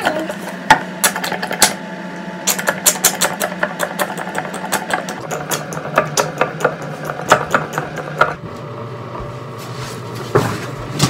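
A motor running with a steady hum, its pitch stepping down about five seconds in and again about eight seconds in, with many quick clicks and rattles over it.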